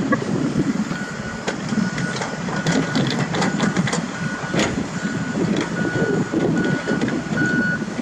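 Komatsu WA470 wheel loader's diesel engine running under load while its reversing alarm beeps over and over from about a second in, with a few sharp knocks in the middle.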